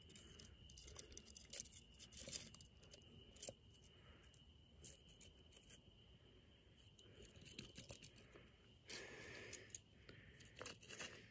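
Near silence with faint rustling, scraping and soft clicks as a paper-wrapped mini ball shell is handled and pushed down into its cardboard mortar tube, with a longer scrape about nine seconds in.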